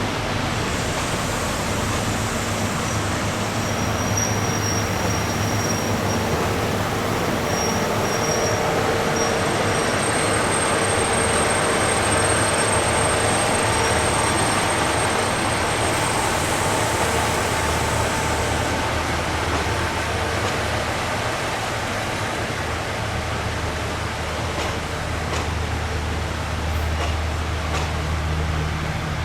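Passenger train of former Japanese blue-train coaches running on the rails: a steady rushing rumble of wheels on track, with thin high squealing tones through roughly the first two-thirds.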